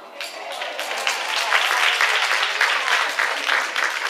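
Congregation applauding, many hands clapping together, swelling over the first second and holding steady.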